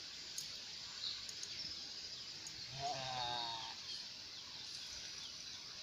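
Quiet riverbank ambience: a steady high hiss with a few faint ticks, and about three seconds in, one short faint call with a held pitch, lasting under a second.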